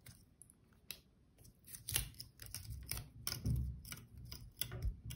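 Thin enamelled copper magnet wire being pulled off a small plastic transformer bobbin and wound by hand onto a plastic tube: light, irregular clicks, scrapes and rustles of wire and plastic. The sound is sparse for about the first two seconds and busier after, with a few soft knocks.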